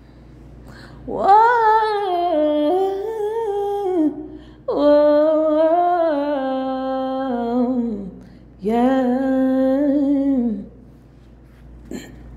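A woman humming a wordless melody in three long, held phrases, the pitch sliding between notes.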